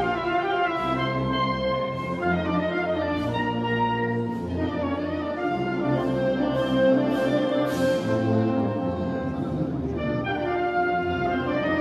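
Wind band of clarinets, saxophones and brass playing in a church, sounding held notes that change roughly once a second.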